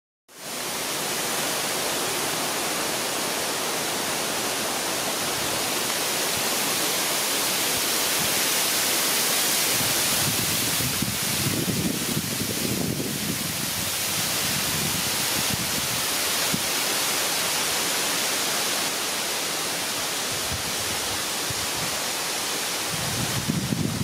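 Thin waterfall spilling down a rock face into a shallow pool: a steady, even rush of falling water.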